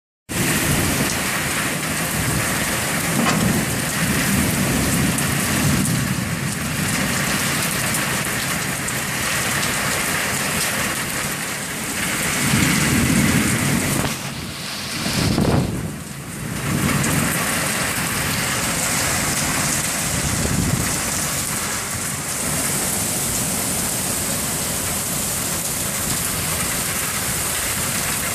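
Heavy rain pouring down in a thunderstorm, a dense steady hiss of rain on surfaces. Low rumbles swell up a few times, loudest about halfway through.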